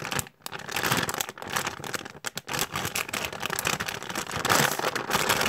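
Clear plastic packaging bag crinkling irregularly as a squishy toy inside it is handled and turned over.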